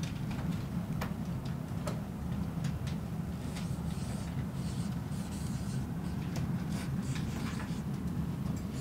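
Dry-erase marker squeaking and scratching on a whiteboard in short, irregular strokes as words are written, over a steady low room hum.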